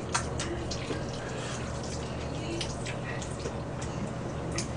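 Wet slurping and smacking of jjajangmyeon noodles being eaten with chopsticks: an irregular run of short, sharp wet clicks over a steady low hum.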